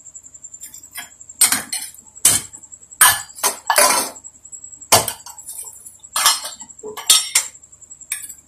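Small stainless-steel bowls clinking and clattering against each other and the kitchen counter as they are handled: a string of about ten sharp, ringing knocks, irregularly spaced, starting about a second and a half in.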